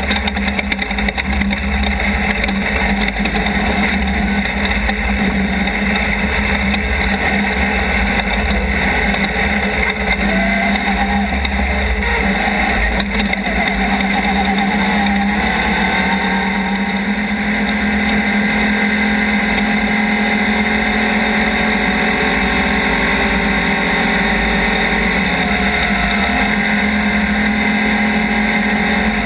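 Off-road race car's engine running hard and steady at speed, with a constant drone and noise over it; the engine note shifts briefly about halfway through.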